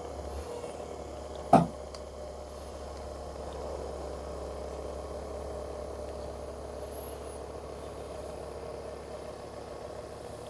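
Handheld percussion massage gun running steadily against a person's upper back, a steady motor hum. One sharp click about one and a half seconds in.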